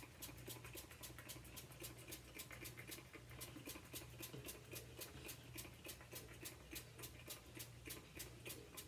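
Small plastic pump spray bottle worked rapidly with the finger, making faint quick spritzes at about six a second in an even rhythm. It is being pumped over and over to prime it until the water squirts out. A faint steady low hum lies underneath.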